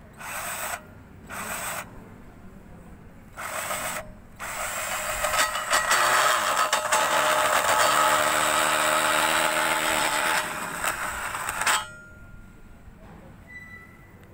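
Black+Decker cordless drill spinning a conical grinding stone against the edge of a bolt hole in a steel rail, chamfering it. Three short blips of the trigger come first, then a steady run of about seven seconds that stops suddenly.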